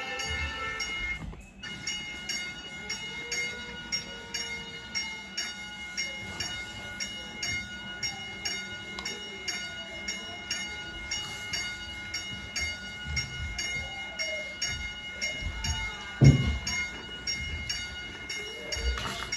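Toy railroad crossing signal playing its electronic sound effect: a ringing crossing bell repeating about twice a second over steady train-like tones. A single loud knock comes about three-quarters of the way through.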